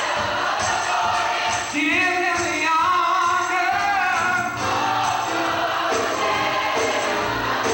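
Gospel choir singing with instrumental accompaniment and percussion keeping a steady beat.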